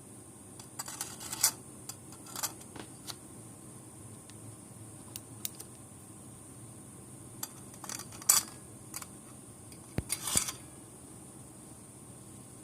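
Small metal parts of a hand warmer and tools being handled: scattered light clinks, clicks and scrapes, loudest about eight seconds in and again around ten seconds, over a faint steady hiss.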